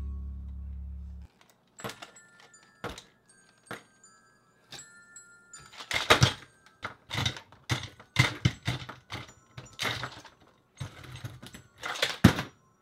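Plastic toy figures knocking and clattering as they are bashed together and handled, a few scattered knocks at first, then a dense run of heavy thunks from about six seconds in. Background music plays under the first second and then stops.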